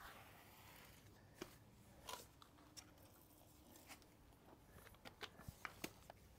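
Near silence with faint scraping and a few short clicks, more of them near the end: a grout float working grout into mosaic tile joints and scooping more grout from a bucket.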